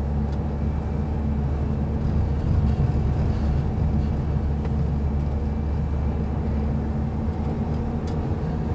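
Renault van driving along, heard from inside the cab: a steady low drone of engine and road noise.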